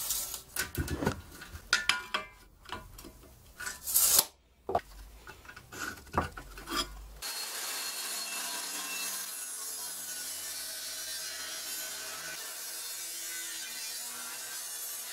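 Irregular knocks and scrapes of a steel bar and tape measure being handled on a wooden bench. About seven seconds in, a handheld angle grinder's cutting disc starts cutting through the rusty steel bar, a steady, even hiss that holds to the end.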